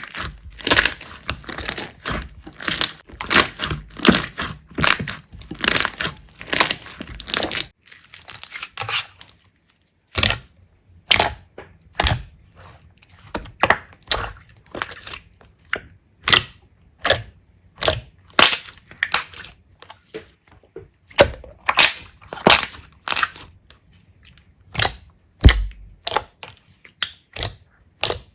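Slime being squeezed and pressed by hand, giving crunchy crackles and sharp pops. Dense crackling for the first several seconds, then, after a short pause, separate sharp snaps about one or two a second.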